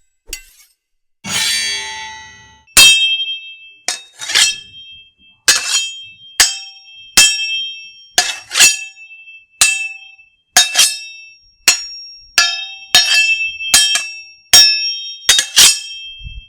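A sword drawn from its sheath with a scraping rasp about a second in. Then a run of sharp, ringing clangs of steel sword blades striking one another, irregular, one or two a second.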